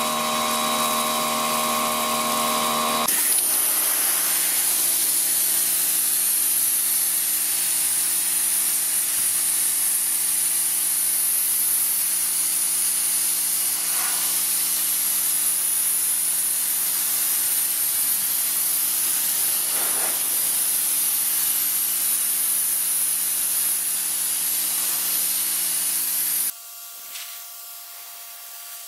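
Parkside PHD 170 C2 pressure washer running, its motor and pump humming under a loud hiss of water jetting from the Vario nozzle onto concrete. The sound drops suddenly to a quieter hum near the end.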